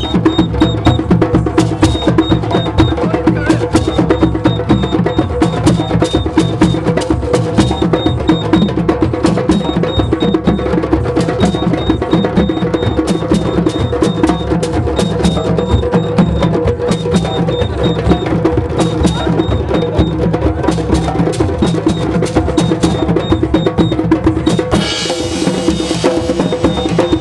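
Drum circle: many hand drums, djembes and tall barrel drums, played together in a loud, fast, steady rhythm, with a beaded gourd shaker (shekere) rattling along.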